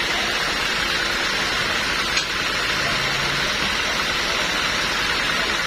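A machine running steadily, a continuous hiss over a faint hum, with one sharp click about two seconds in.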